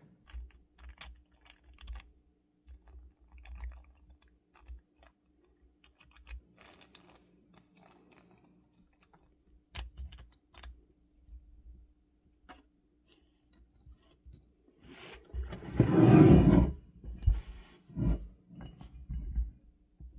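3D-printed plastic ball joint being handled: scattered small clicks, taps and rattles, with a louder, longer burst of noise about three-quarters of the way through.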